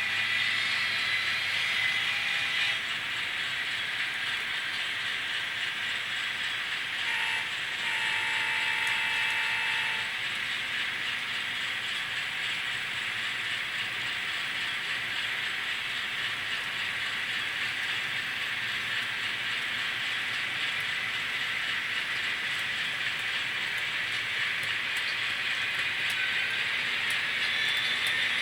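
N scale model trains running on the layout: a steady whir of small motors and gears with fine clicking of wheels over the rails. About seven seconds in a steady tone sounds for roughly three seconds.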